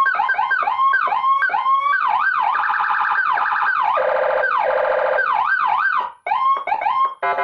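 Electronic siren module cycling through its tones: fast rising-and-falling yelps, rising whoops, and in the middle a fast pulsing warble. It cuts out briefly twice near the end as it switches pattern.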